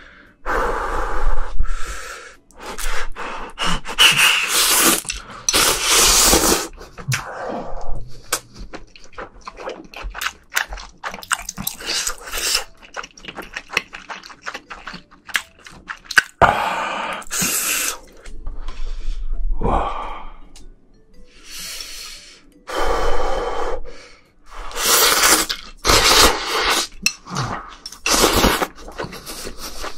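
Ramen noodles slurped off chopsticks, several long slurps with wet chewing and small clicks between them, picked up close by the microphones.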